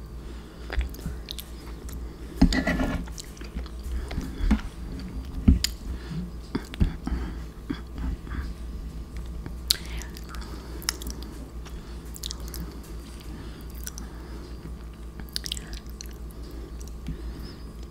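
Close-miked chewing of soft, saucy macaroni and cheese, with scattered wet mouth clicks and smacks.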